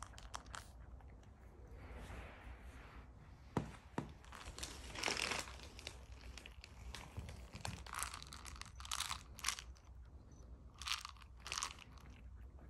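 Siberian kittens crunching dry kibble from a plastic treat-ball feeder: irregular bites and chewing, with a couple of sharp clicks about four seconds in.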